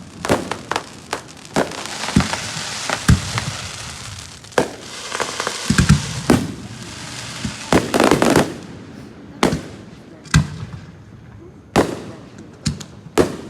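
Fireworks going off in quick, irregular succession: sharp bangs one after another, with a long stretch of dense crackling from about two to six seconds in.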